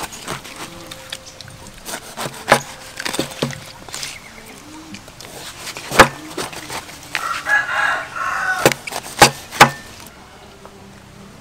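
A steel cleaver chopping through a ripe jackfruit onto a wooden table, making a series of sharp knocks. A rooster crows once in the background about seven seconds in.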